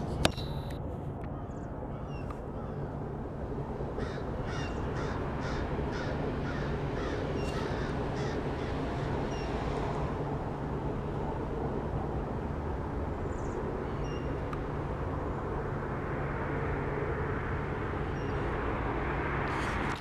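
Birds giving a quick run of short, harsh calls, about three a second, from about four to eight seconds in, with a few thin high chirps, over a steady hum of distant traffic. A single sharp knock sounds just after the start.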